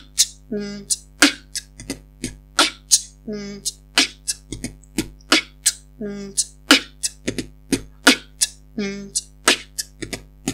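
Human beatboxing: the practice pattern 'nuu, tk, tp, pp, kt' looped four times. Each bar opens with a short hummed 'nuu' siren tone made between the upper teeth and the lower lip, followed by a run of sharp mouth clicks for kick, hi-hat and snare.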